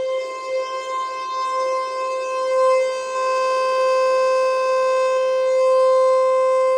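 Federal Signal Eclipse 8 electronic outdoor warning siren sounding a steady tone at one unchanging pitch, with strong overtones.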